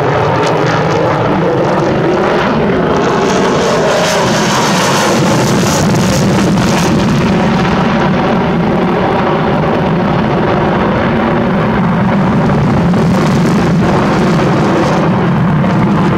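Sukhoi Su-57 fighter's twin jet engines running on afterburner during an aerobatic display, a loud steady jet roar with tones that waver in pitch as the aircraft manoeuvres.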